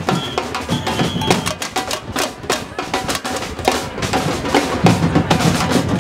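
Street drumming band playing a fast, continuous rhythm on many drums, bass drums included.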